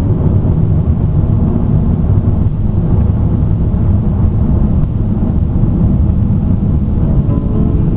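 Steady low rumble of a car driving along a sealed road, with tyre and wind noise heard from inside the cabin.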